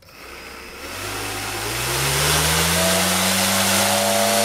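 Small brushless RC motor (a rewound 2205, about 1400 KV, on a 3-cell battery) spinning a thin 3D-printed 8-inch two-blade propeller up to full throttle on a thrust stand: a rising whine with a rush of air, steady from about two seconds in. At full speed the thin printed blades flutter, which the tester blames for the propeller's low thrust.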